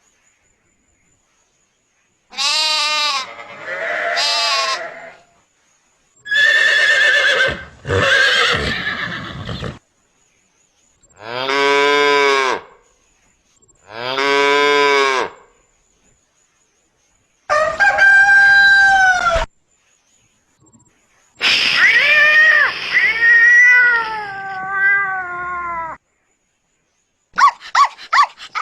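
A sequence of recorded farm-animal sound effects separated by short silences: a sheep bleating twice, a horse whinnying, a cow mooing twice, a hen calling, then a cat meowing several times with falling pitch.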